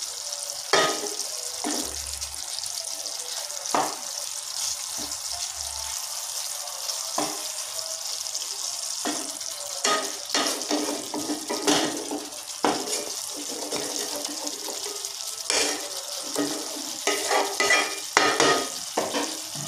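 Thick curd-and-spice gravy sizzling and bubbling in a pan over low heat, a steady hiss. A wooden spatula scrapes and knocks against the pan now and then, more often near the end, as the stuffed pointed gourds are turned.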